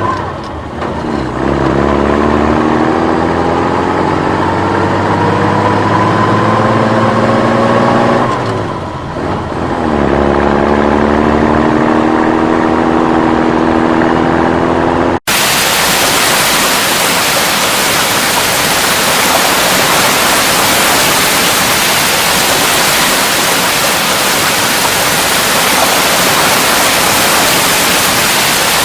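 A motor vehicle's engine accelerating, its pitch climbing steadily, falling off briefly after about eight seconds as if it changes gear, then climbing again. About halfway through it cuts off abruptly, replaced by a steady rushing hiss like heavy water or rain.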